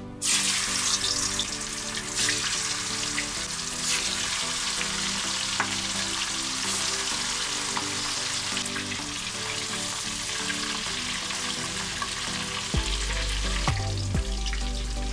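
Meatballs frying in very hot oil: a steady, loud sizzle that starts suddenly, with scattered crackles throughout as they brown.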